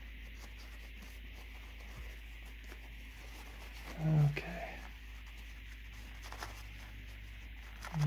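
Paper towel rubbing and rustling as old grease is wiped off small plastic actuator parts, over a steady low hum. About halfway through, a short wordless vocal sound from the man is the loudest thing.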